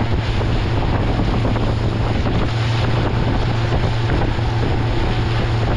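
Motorboat under way: a steady engine drone under heavy wind buffeting on the microphone.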